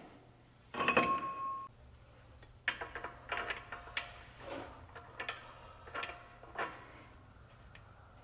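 Steel parts clinking at a truck's wheel hub as the bearing adjusting nut is worked by hand: a ringing metal clank about a second in, then a string of light, sharp clinks.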